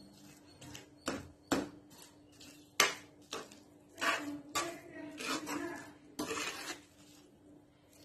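Metal spoon stirring thick cooked vermicelli and jaggery in a metal kadai. The spoon clinks sharply against the pan several times in the first half, then makes longer scraping strokes.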